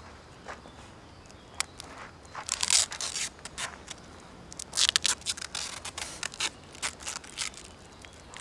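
Adhesive tape being pulled off its roll in ripping strips and wound around a hand. There is a longer pull about two and a half seconds in, another near five seconds, then a run of short crackling tugs.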